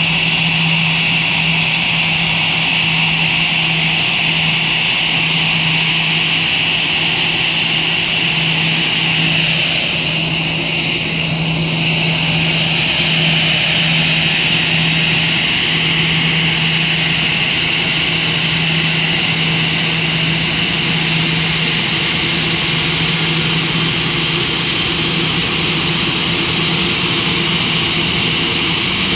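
Airbus A320-family airliner's twin turbofan engines at idle as it taxies into its stand, a steady high whine over a low hum. The whine dips briefly about ten seconds in as the jet turns.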